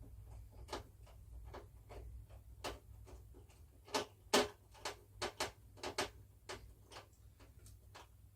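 Irregular sharp clicks and ticks, a few a second and loudest about four seconds in, as screws are tightened into the aluminium side panels of a fulling drum, over a faint low hum.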